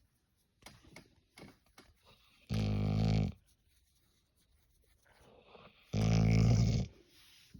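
Golden retriever making two low, drawn-out vocal noises, each lasting under a second, about three seconds apart.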